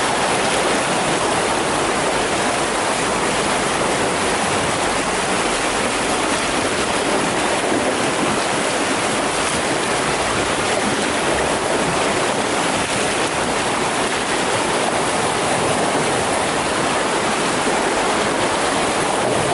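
Tidal rapids: seawater rushing and churning through a narrow inlet, a loud steady rush of whitewater.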